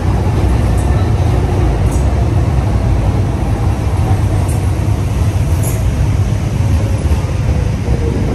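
A three-unit Docklands Light Railway train pulling into the station: a steady, loud rumble of steel wheels on the rails, with a faint whine that falls in pitch as the train slows.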